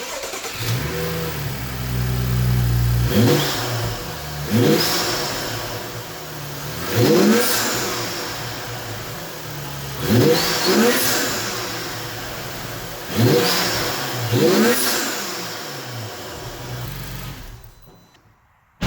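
BMW N55 turbocharged straight-six, fitted with a carbon-fibre intake, idling and then free-revved in about seven quick blips. Each blip sweeps sharply up in pitch and falls back to idle. Turbo spool and the bypass valve can be heard through the open intake. The engine sound dies away near the end.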